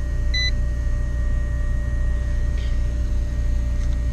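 A single short electronic beep from a digital clamp meter, about half a second in, over a steady low hum.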